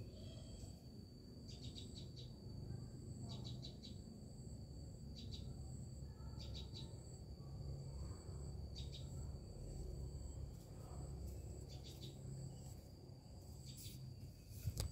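Garden ambience: a steady high-pitched insect drone, with clusters of short high chirps every second or two over a low rumble. A sharp knock near the end.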